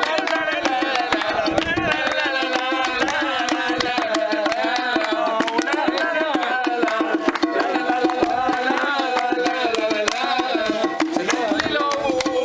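Lively hand-drum folk music: fast drum strikes under a wavering, ornamented melody over a steady held note.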